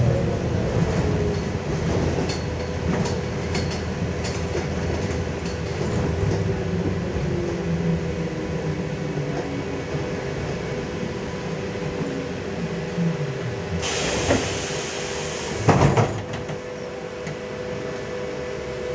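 Inside a LiAZ-5280 trolleybus under way: the DK-213 electric traction motor whines, its pitch gliding as the speed changes, over the running noise of the body and tyres, with a few light clicks. About three-quarters of the way through there is a hiss and two loud knocks.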